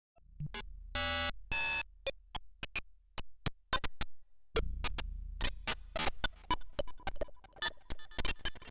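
DIY Arduino-based wavetable synthesizer oscillator in random glitch mode: irregular sharp clicks and short noisy bursts over a low hum. The hum drops out after about a second and returns about four and a half seconds in, after which the clicks come faster and denser.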